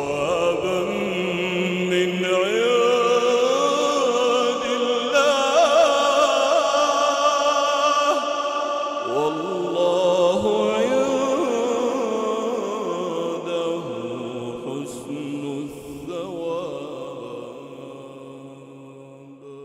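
A male reciter chanting the Quran in long, drawn-out melodic phrases with ornamented glides, fading out gradually over the last several seconds.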